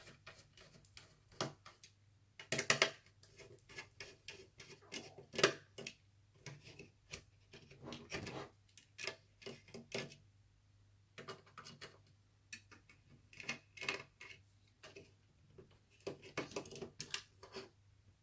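Irregular small clicks and taps of a screwdriver and fingers on a laptop's plastic and metal parts as its cooling fan is unscrewed and lifted out, some clicks coming in quick clusters.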